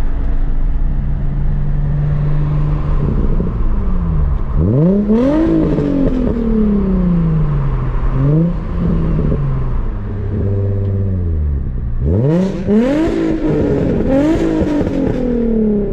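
Nissan 350Z's V6 with an aftermarket Tomei Y-pipe and exhaust, heard from inside the cabin. It runs steadily, then revs up sharply about four seconds in and falls away, and climbs hard again about twelve seconds in before a long fall in pitch. By the end the car is running the Invidia 60 mm test pipes and a Tomei single-exit exhaust.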